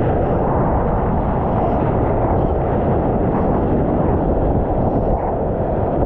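Loud, steady rush of wind buffeting and water washing over a POV camera's microphone in the surf, with no clear tone or rhythm.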